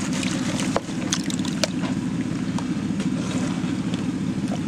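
A gold dredge's engine running steadily with a low, even drone, over which water sloshes and splashes as a plastic gold pan of concentrate is swirled and dipped in a tub.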